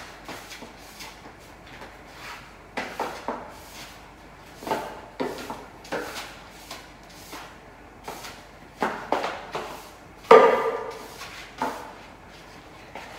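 Irregular knocks and scrapes of household things being handled and set down, with one loud clatter that rings briefly about ten seconds in.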